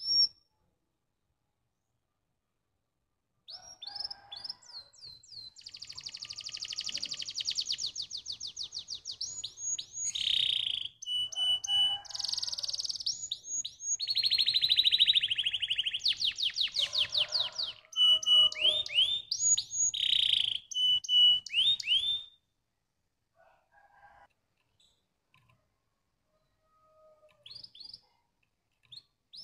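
Domestic canary singing: after a short note and a pause of a few seconds, a long song of fast rolling trills and high clear whistled notes. It breaks off about two-thirds of the way through, leaving a few scattered soft notes before the song picks up again at the very end.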